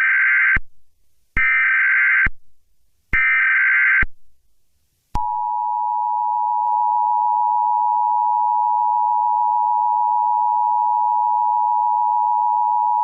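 Emergency Alert System tones: three bursts of SAME header data tones, each just under a second, then about five seconds in the EAS attention signal, a steady two-tone alarm, starts and holds.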